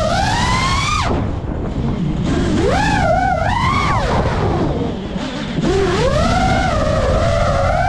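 FPV quadcopter's motors whining, the pitch rising and falling with the throttle, over a steady wind rumble on the microphone. The whine drops away sharply about a second in and again from about four to five and a half seconds in, then comes back.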